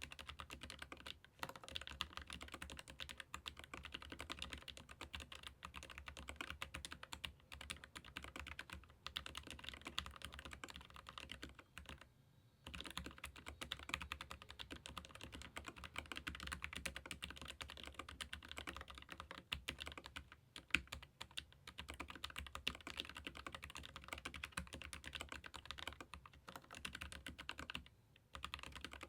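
Fast continuous typing on a Keychron K15 Pro Max ergonomic keyboard with Gateron low-profile red linear switches. There are short breaks about a second in, near the middle and near the end.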